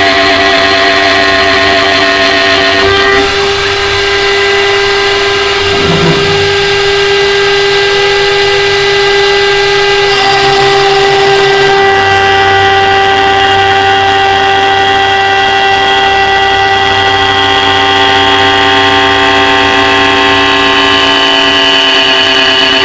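CNC wood lathe running, its spindle and drive motors giving a loud, steady whine of several held tones that shift in pitch a few times.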